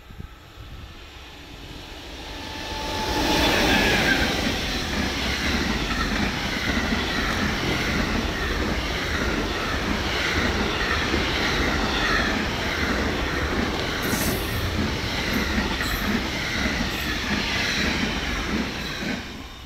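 A freight train hauled by an SNCF BB 27000-series electric locomotive passes close by, its wagons carrying lorry trailers. The sound swells as the locomotive arrives about three seconds in. A steady rumble and clatter of wheels on the rails follows as the wagons roll past, and it drops away suddenly at the very end as the last wagon clears.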